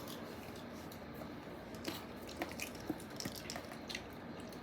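Plastic mustard squeeze bottle being squeezed hard: faint squishing with scattered small clicks and taps. The tip is still closed, so the mustard won't come out.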